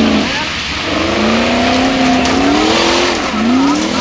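Formula Offroad buggy's engine revving hard, its pitch rising and dipping over and over, with a rough hiss as the paddle tyres spin on loose gravel on a steep hill climb.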